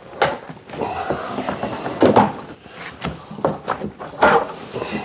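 Luxury vinyl planks being pulled apart at their click-lock joints and handled on a hardwood floor: several knocks and clacks, the loudest about two and about four seconds in, with lighter clatter between.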